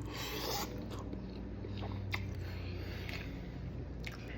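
A person chewing a mouthful of instant ramen noodles, with short, soft mouth clicks scattered through it, over a steady low hum.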